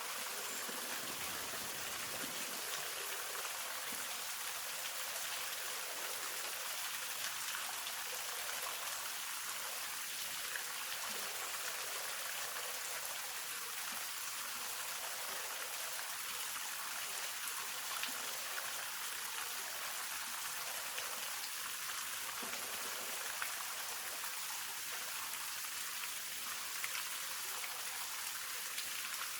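Waterfall falling into a pool, a steady hiss of splashing water with faint drips and ticks.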